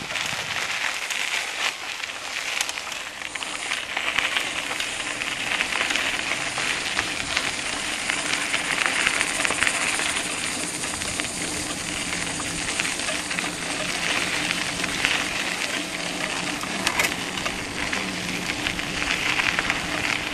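Small motorcycle riding along a dirt road: a steady rushing hiss of wind and tyre noise over a faint, even engine hum.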